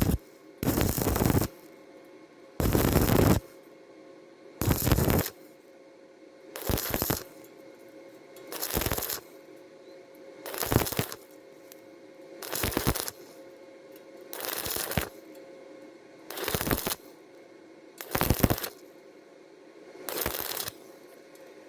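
Stick welding arc on thin steel square tube (2.5 mm rod at about 75 amps) crackling in short bursts about every two seconds, the arc struck and broken again and again. Eleven bursts in all, over a faint steady hum between them.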